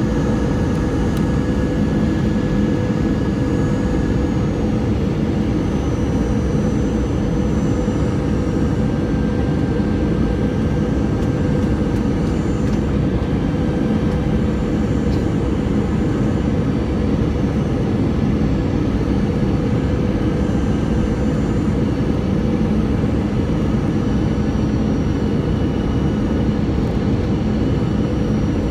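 Steady cabin noise of an Airbus A320 on final approach, heard from a window seat over the wing: engines and rushing air running evenly, with a constant low hum running through it.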